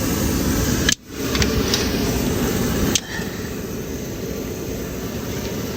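Steady rushing noise of a forced-air torpedo heater running. It drops out sharply for a moment about a second in, then a click comes near three seconds and the noise settles slightly quieter.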